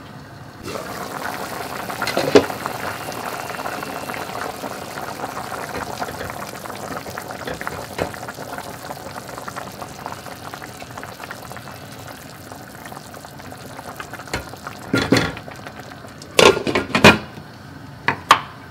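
Spinach and potato soup boiling in a pot, bubbling steadily while a wooden spoon stirs it. There is a sharp knock about two seconds in, and a run of loud clinks near the end as the glass lid and spoon knock against the pot.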